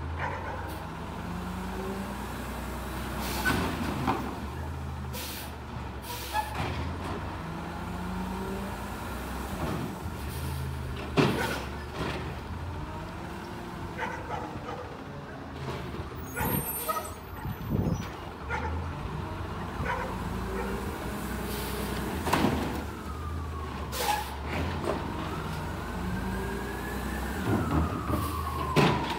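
Automated side-loader garbage truck working curbside carts: the engine revs up and settles again and again as the lifting arm cycles, with air-brake hisses and sharp knocks of carts being tipped into the hopper. A falling whine comes near the end.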